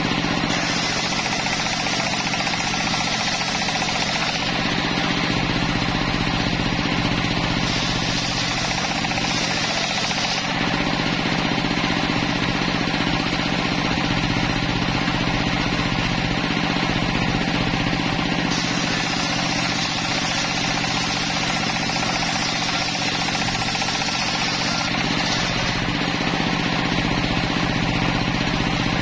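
Engine-driven home-built circular sawmill running steadily, its engine drone constant. Three times a higher hiss comes in for a few seconds as the blade cuts through timber.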